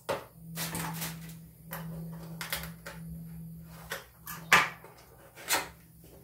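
Small cardboard box being handled and opened on a sink counter: a run of short scrapes, rustles and knocks, the sharpest knock about four and a half seconds in.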